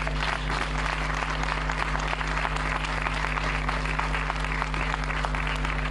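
Crowd applauding in a steady round of clapping, over a low steady hum.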